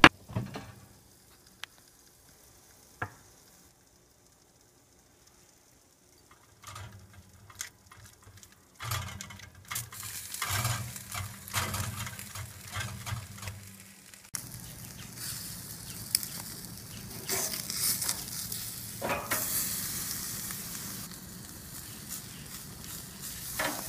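Barbecue-sauced pork ribs sizzling under an oven broiler over a low steady hum, then sizzling on a grill as a brush bastes them. The first several seconds are near silent apart from a couple of clicks.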